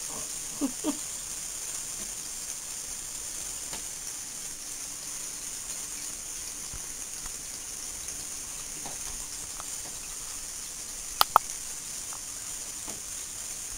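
Light taps and clicks of a kitten's paws and claws on a wet bathtub over a steady hiss, with two sharp clicks close together near the end.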